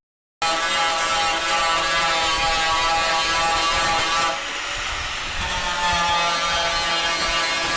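Power tool running steadily as it grinds or sands, with a steady whine over a rough rasp. The sound eases off for about a second near the middle, then comes back.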